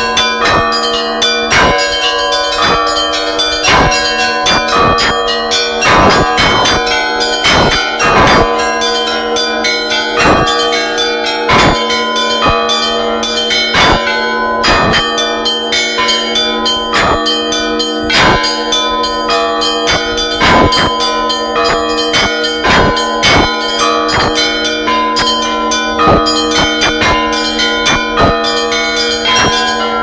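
Russian Orthodox church bells rung by hand, clappers pulled by ropes: a fast, continuous peal of strikes on several bells, each new stroke landing over the ringing tones of the last.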